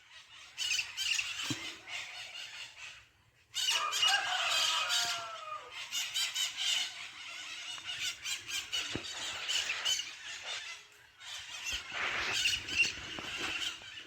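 A flock of maritacas (small parrots) screeching and squawking in a dense, shrill chorus. The sound cuts out briefly about three seconds in.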